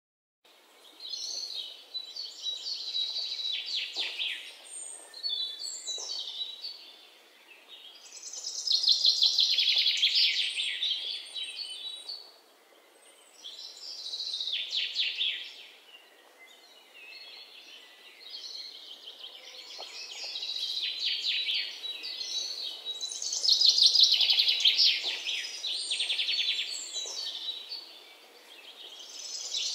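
Birdsong: bouts of rapid, high-pitched chirping and twittering that swell and fade every few seconds.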